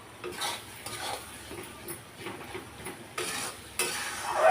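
A metal spoon scrapes and stirs around a kadhai in several uneven strokes, the loudest near the end, while the tomato-onion masala sizzles faintly.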